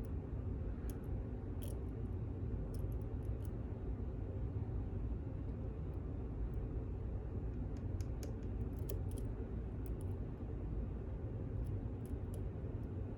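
Faint, scattered metallic ticks and clicks of a lock pick working the pins of a LOB pin-in-pin lock as the pins are probed and set, over a steady low hum.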